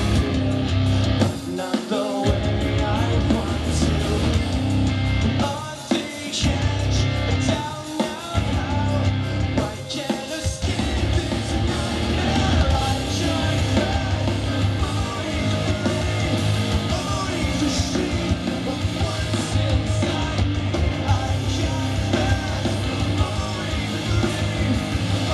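Live rock band playing: a singer on microphone over electric guitar and drums. The music breaks off briefly several times in the first ten seconds, then plays on steadily.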